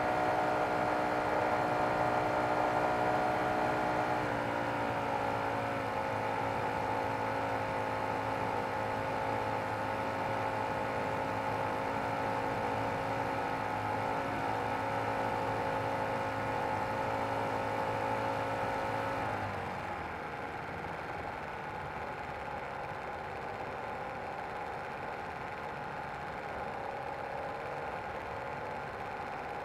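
O.S. FT-120 Gemini II twin-cylinder four-stroke glow engine of a 25% SIG Spacewalker II model plane running steadily in flight, recorded from the plane's own cowl. Its pitch dips slightly about four seconds in. About 19 seconds in it is throttled back sharply to a low, quieter idle as the plane comes in to land.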